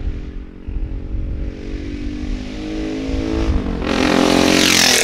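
Custom BSA Scrambler 650's big single-cylinder engine through a straight-through exhaust, accelerating and rising in pitch, getting much louder over the last second or so. Wind rumbles on the microphone throughout.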